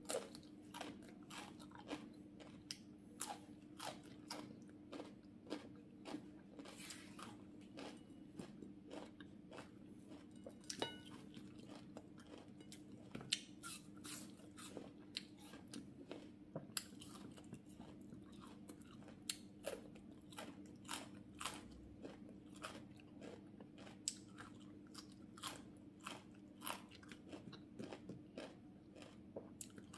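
Close-miked eating of raw cucumber and apple slices: a steady run of crisp bites and crunchy chewing, several small crunches a second, over a faint steady low hum.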